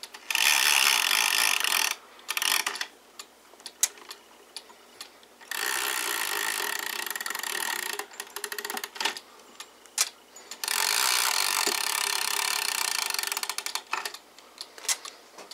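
Hubert Herr Black Forest cuckoo clock being wound by hand: three long pulls on the weight chains, each a rapid ratcheting rattle as the chain runs over its sprocket and the pine-cone weight rises, with scattered quieter clicks between the pulls.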